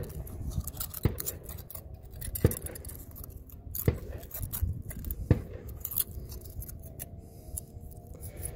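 Thin aluminum foil crinkling as a small strip is wrapped by hand around a screw, with sharp crackles about every second and a half.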